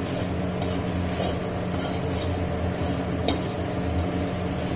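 A spatula stirring and scraping fried rice around a metal kadhai, with a sharp clink about three seconds in, over a steady low hum.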